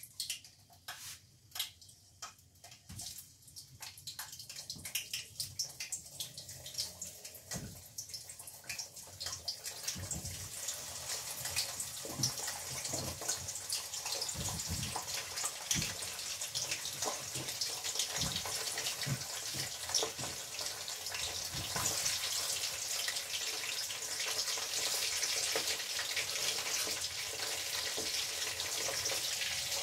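Vegetable pieces sizzling and crackling in hot oil in a wok. The frying grows steadily louder as more pieces go in, with soft knocks as pieces are handled.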